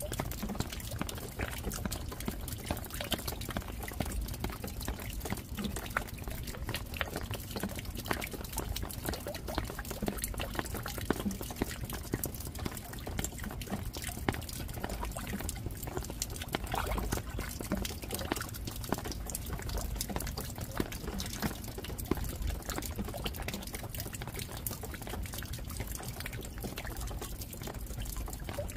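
Steady rain falling: a dense, even patter of many drops with louder single drips scattered through it.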